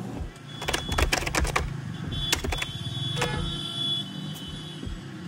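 Typing on a computer keyboard: bursts of quick key clicks, busiest about a second in, over a low steady hum.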